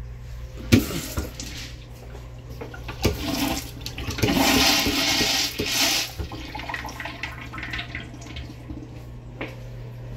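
Kohler Darfield urinal flushing through its flush valve. A sharp click comes about a second in. A rush of water starts about three seconds in, is loudest for a couple of seconds, then tapers off.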